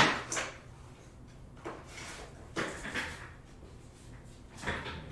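A handful of short knocks and scrapes of things being handled and set down, the loudest right at the start, over a faint low hum.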